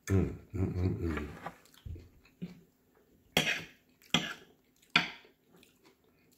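A man's low murmur of voice in the first second and a half. Then a metal fork scrapes and clinks against his plate three times, about a second apart, as he picks up salad, with faint chewing between.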